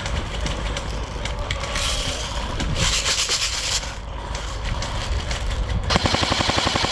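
Rustling and scraping of movement through kit and undergrowth, then about a second before the end an airsoft gun fires a fast full-auto burst of about twenty shots a second.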